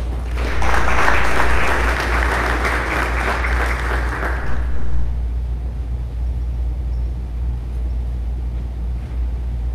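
Audience clapping for about four and a half seconds, then dying away, over a steady low hum.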